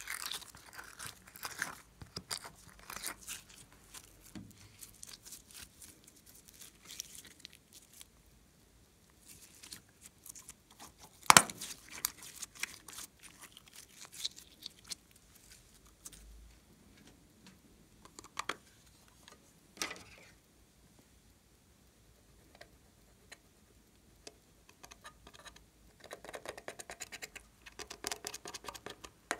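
Glossy slime being scooped, stretched and folded by hand: soft sticky crackles and small clicks, with one sharp snap about eleven seconds in. Near the end comes a rapid dry scratching as eyeshadow is scraped out of its palette into the slime.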